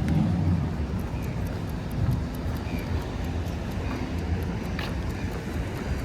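Wind rumbling on the microphone during a run, a steady low rumble, with faint light taps of footfalls scattered through it.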